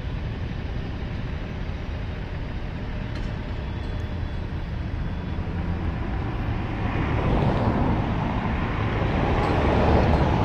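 Road traffic noise: a steady low rumble, with a vehicle growing louder from about seven seconds in.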